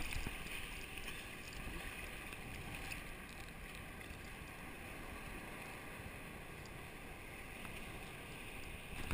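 Sea water lapping and sloshing right at the microphone of a camera held at the surface, steady and fairly quiet, with some wind on the microphone.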